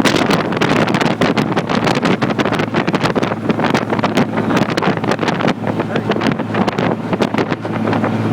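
Speedboat engine running under way with a steady low hum, under heavy, irregular wind buffeting on the microphone.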